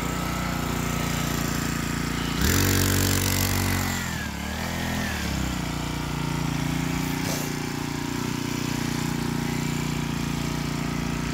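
Mini bike's small engine running steadily. About two and a half seconds in it revs up sharply, its pitch dips and recovers over the next few seconds, and then it settles back to a steady run.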